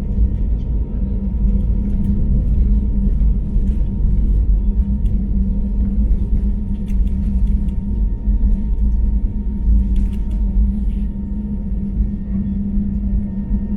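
Airbus A321neo's Pratt & Whitney geared turbofan engines at take-off thrust, heard inside the cabin as a heavy, steady rumble with a constant hum. Short rattles of the cabin fittings cluster about ten seconds in, and the rumble eases slightly near the end.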